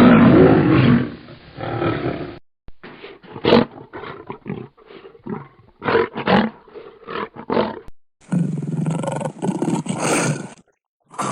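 Designed creature sound effects: a loud roar lasting about two seconds, then a string of short separate snarls and growls, then a longer roar near the end, with dead silence cut between the pieces.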